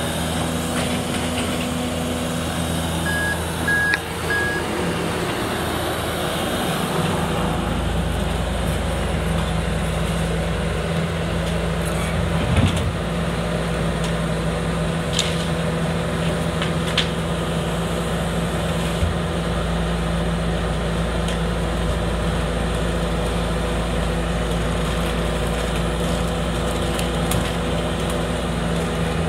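Bobcat skid-steer loader's diesel engine running steadily close by, its low rumble getting heavier from about seven seconds in as it works the grab bucket, with a waste truck's engine running behind it. Three short high beeps about three seconds in, and a few sharp knocks.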